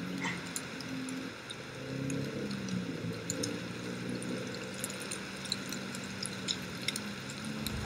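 Steady rushing noise with scattered light ticks and a faint, wavering low hum.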